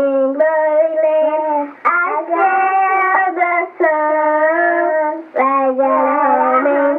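A high voice singing a tune unaccompanied, in held notes with short breaks between phrases. It comes from an old home reel-to-reel tape recording and sounds thin, with no bass and little treble.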